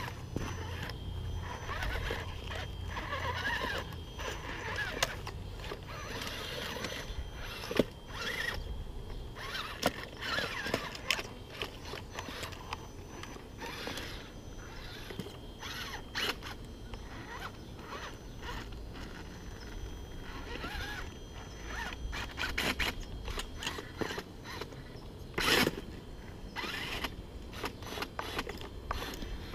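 RC rock crawler's brushless motor and geared drivetrain whining in short stop-start bursts as it climbs over logs, the pitch rising and falling with the throttle, with clicks and knocks from the tires and chassis against the wood.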